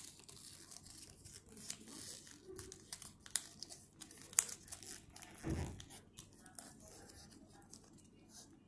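A sheet of origami paper being folded and creased by hand: crinkling and rustling with many small sharp crackles, and a dull bump a little past halfway.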